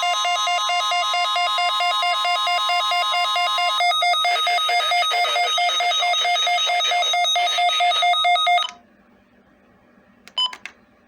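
NOAA Weather Radio warning alarm tone, a steady tone near 1 kHz, under a weather radio receiver's rapidly pulsing alarm beep as the weekly test activates it. The steady tone ends about four seconds in and hiss takes its place; the pulsing alarm cuts off suddenly near the end, followed by one short beep.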